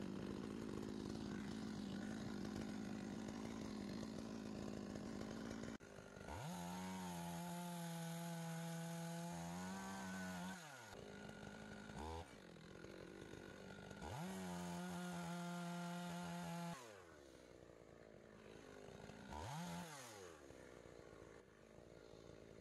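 Two-stroke gasoline chainsaw running, throttled up to full speed in two held runs of a few seconds each, with short revs in between, the engine pitch gliding up at each start and dropping away at each end.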